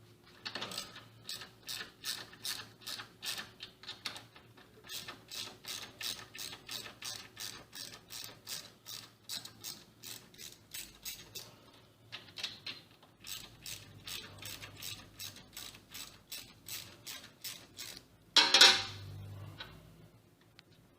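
Ratchet wrench clicking in steady runs of about four clicks a second, backing out the bolts of a dental chair's stop bracket, with a short pause partway through. A single loud clunk follows near the end.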